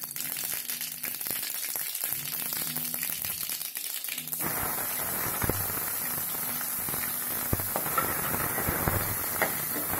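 Mustard and cumin seeds crackling and popping in hot oil in a steel kadai, the tempering stage. About four seconds in, sliced red onions are tipped in and the crackle gives way to an even sizzle of frying, with the odd pop.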